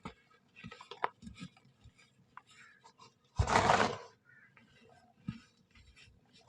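Soft brown sand being crumbled and crushed, with scattered small crackles and one louder crunch lasting about half a second around the middle.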